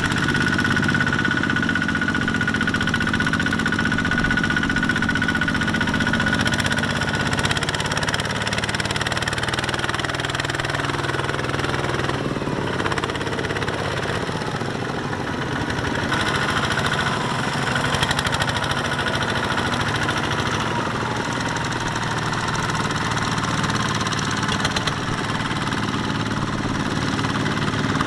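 Tractor's diesel engine running steadily, with a knocking clatter. A thin high whine sits over it for the first seven seconds or so.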